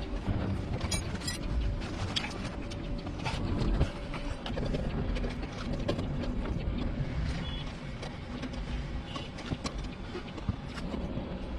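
Irregular clicks and knocks of tools and parts being handled during work on a car, over a low rumbling background.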